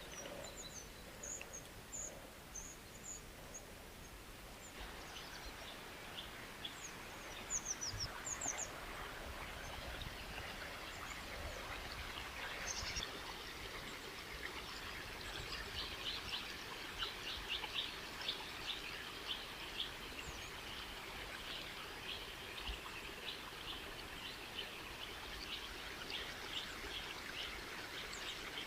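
Water flowing steadily with birds chirping over it: a few high calls in the first seconds and around eight seconds in, then a long run of quick chirps through the second half.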